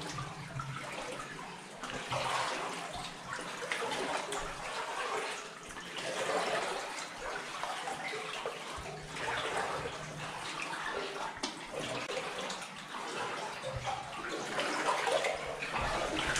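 Water sloshing and splashing in irregular surges as people wade along a flooded mine adit.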